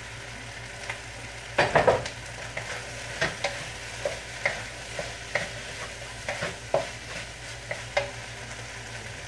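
Broccoli, onions and garlic sizzling in butter in a wok, stirred with a utensil that scrapes and clacks irregularly against the pan. The strokes are loudest about two seconds in.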